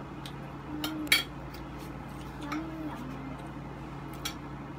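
Metal fork and spoon clinking and scraping against ceramic plates while eating, a few separate clicks with the loudest about a second in.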